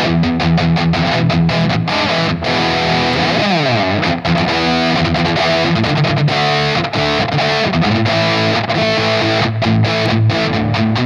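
Distorted electric guitar played through a Line 6 POD HD300 amp model, recorded direct with no microphone. It plays a riff of short, choppy notes, with a slide down the neck a little over three seconds in.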